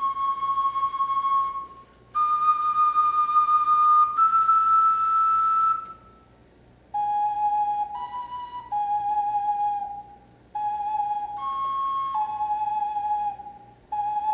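Clay ocarina playing single pure, held notes: three long notes stepping upward, a short pause, then a run of shorter notes moving back and forth between a lower pitch and one slightly higher. The instrument is being sounded to test its notes.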